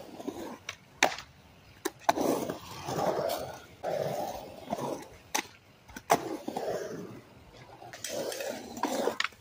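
Skateboard wheels rolling over concrete in stretches, with several sharp clacks of the board hitting the ground.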